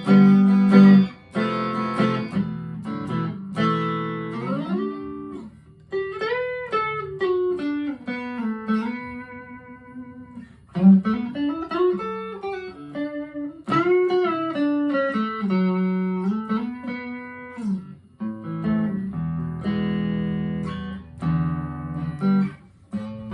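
Harley Benton ST-25th Strat-style electric guitar played clean: strummed chords, then single-note lead lines with string bends, then chords again near the end.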